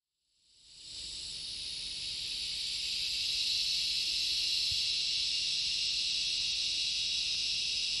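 Dense, steady chorus of insects calling at dusk, an even high-pitched buzz that swells in over the first second and then holds.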